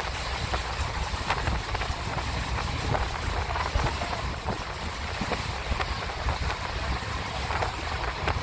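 Passenger train running at speed, heard from a carriage window: a steady low rumble of wheels on rail with frequent irregular knocks and rattles.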